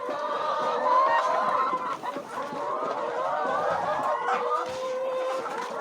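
A flock of laying hens clucking and calling together, many overlapping voices at once.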